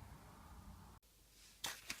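Quiet room tone that cuts out abruptly about halfway through, followed by two short, sharp noises near the end.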